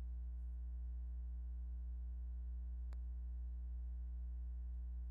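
Steady electrical mains hum, low with a row of higher overtones, unchanging throughout; one short click about three seconds in.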